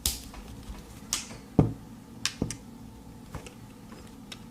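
Pocket knives being handled: a run of sharp clicks and light knocks, the loudest a dull knock about one and a half seconds in.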